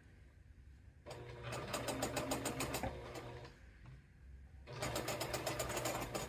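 Straight-stitch sewing machine stitching a rolled hem in two short runs of rapid, even needle strokes, with a brief pause between them.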